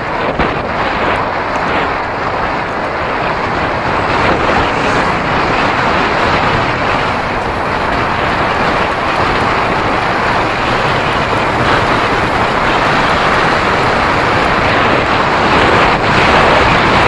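Wind rushing over the microphone of a camera riding along on a bicycle: a steady, loud roar of noise that grows a little louder toward the end.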